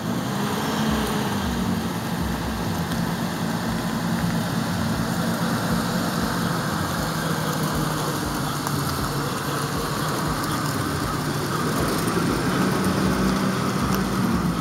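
Lincoln Navigator stretch limousine's 5.4-litre V8 idling steadily.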